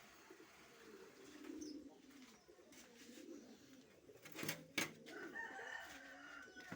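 Doves cooing faintly, low repeated coos, with two sharp clicks about four and a half seconds in.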